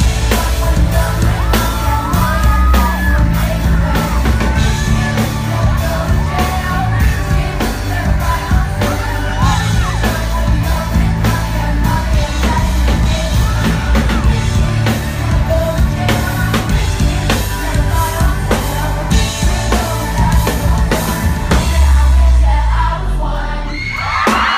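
Live pop-rock band playing, with a drum beat, bass and electric guitar under a female lead vocal, and audience members yelling and singing along close to the microphone.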